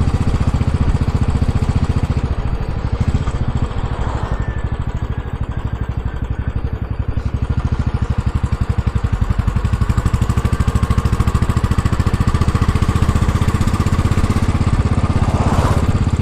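Royal Enfield Classic 500's single-cylinder engine pulsing steadily while the bike is ridden. It drops back a little a few seconds in, then picks up again about nine seconds in.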